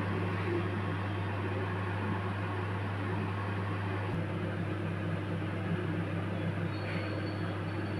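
Steady low mechanical hum with an even hiss, unchanging throughout, with a faint click about four seconds in.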